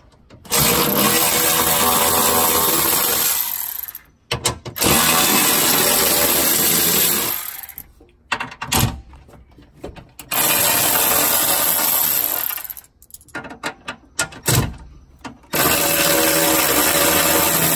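Milwaukee M12 3/8-inch cordless ratchet running in four bursts of about three seconds each, spinning out the 12 mm bolts on a Prius hybrid battery cover.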